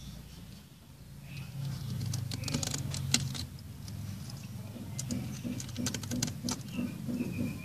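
Thin shells of straw-headed bulbul eggs cracking and clicking as fingers peel them open, in two spells of small sharp clicks, over a low steady rumble.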